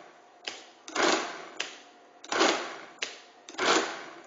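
Friden STW-10 electromechanical calculator running repeated subtract-and-add cycles while extracting a square root by subtracting fives. Each cycle is a short burst of mechanical clatter, about one every 1.3 seconds, with a sharp click of a key or operating bar being pressed just before each burst.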